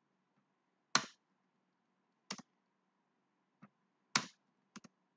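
Computer mouse and keyboard clicking: about six sharp, separate clicks, the last two in quick succession, as code is pasted in line by line.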